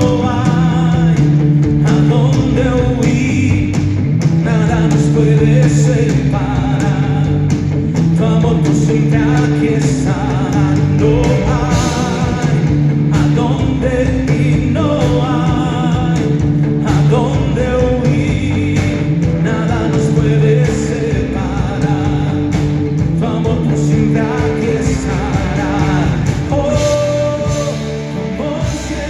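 A live worship band playing a rock-style song, with a singing voice over guitar and a steady drum beat.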